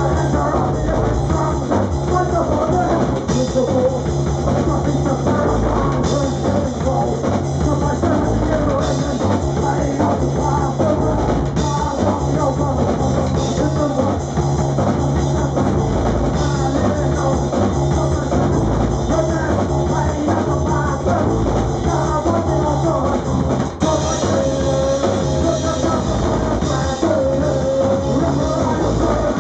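A live rock band playing loud: drum kit and electric guitar, with singing.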